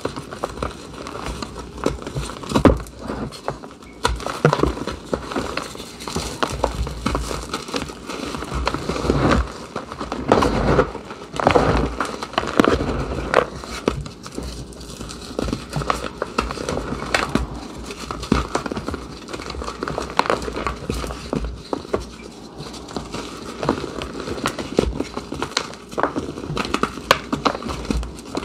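Blocks of reformed gym chalk being crushed and crumbled by hand into loose chalk powder: an irregular run of crunches and crackles with sharper cracks here and there.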